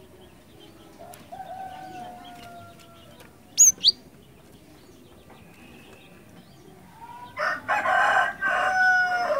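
A rooster crows, faintly for about two seconds from a second in, then loudly for about two seconds near the end. Between the crows, a cinereous tit (glatik batu) gives two sharp, high chirps.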